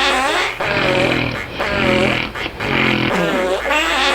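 Rhythmic snoring that sounds like farting: each breath, about every two seconds, is a low buzzing rattle followed by a wavering, whistling tone.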